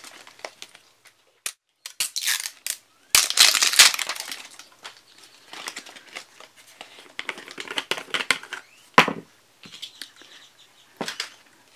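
Hands handling a clear plastic jar-shaped toy package, crinkling and scraping the plastic while twisting off its plastic screw lid, with the attached paper tags rustling. The handling is loudest about three to four seconds in, and there are sharp clicks about nine and eleven seconds in.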